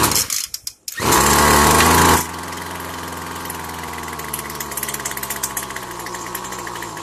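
Weedeater-brand two-stroke string trimmer being pull-started. It catches about a second in and runs fast for a moment, then drops to a quieter, slightly sagging idle. The owner takes this for a lean low-speed mixture that needs the low fuel screw opened up.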